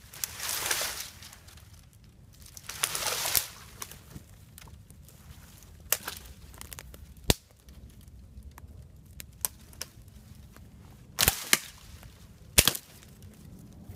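Dry deadwood being worked by hand: two rustling swishes in the first few seconds, then several sharp wooden cracks and knocks, including a quick pair later on.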